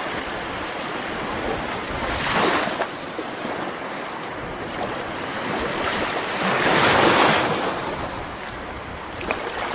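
Ocean waves washing ashore, with two louder swells breaking about two and a half seconds and seven seconds in.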